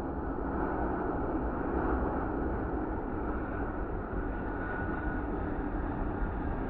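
Steady, deep roar of an Airbus A330-200's Rolls-Royce Trent 700 jet engines and airflow as the airliner comes in to land.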